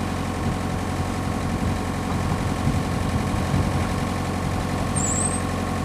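Diesel engine idling steadily with a low, even hum.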